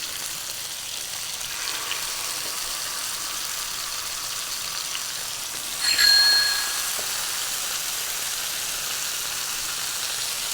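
Bone-in, skin-on chicken thighs sizzling steadily in hot olive oil in a frying pan as they start to sear. About six seconds in there is a louder burst with a short ringing tone, like a metal clink.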